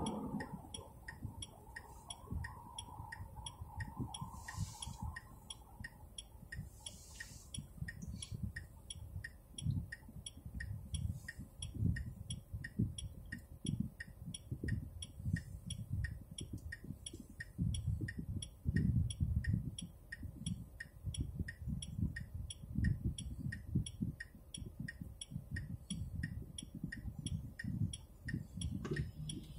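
Turn-signal indicator ticking steadily inside the cabin of a Smart ForTwo 453, about two ticks a second, over the low rumble of the car.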